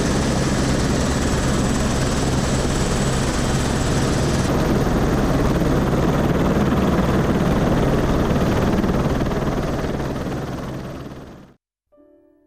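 Helicopter running on the ground with its main rotor turning, a loud steady rotor-and-engine noise with a faint high whine. It fades out about eleven seconds in, and soft piano music begins near the end.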